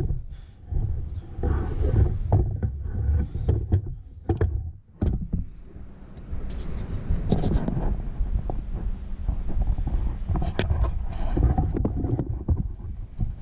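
Handling noise on the camera's microphone: uneven low rumbling with scattered knocks and clicks as the camera is moved.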